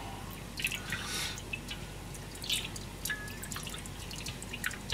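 Water splashing and dripping in a stainless steel bowl as boiled food pieces are rinsed by hand in cold water and lifted out with a slotted ladle. Scattered small splashes and drips, a few seconds apart.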